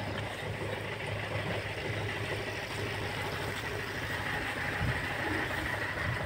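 An engine running steadily at an even pace, a low hum with a faint high whine above it.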